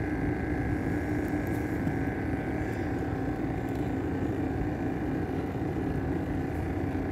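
A boat engine running steadily, a constant hum with no change in pitch.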